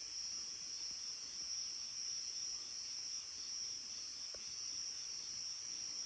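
Night insect chorus, crickets giving one steady, high-pitched continuous trill.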